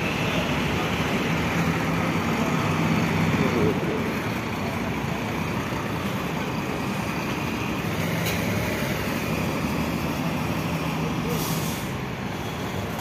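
Sinar Jaya intercity bus's diesel engine running steadily as the bus pulls out, with a short hiss of air, typical of an air brake, about eleven seconds in.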